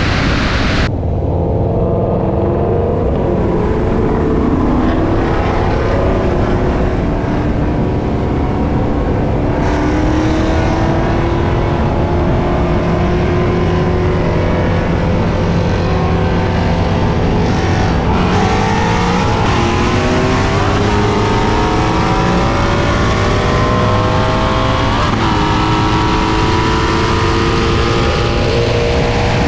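Ford Mustang 5.0 V8 engine, the S197 with a manual gearbox running on E85, at full throttle in a roll race. Its pitch climbs in each gear and is broken by several gear changes, over heavy wind and road noise.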